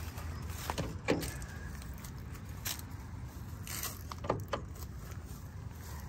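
Keys jingling with several sharp clicks while walking, plus two short falling chirps, about a second in and again past four seconds.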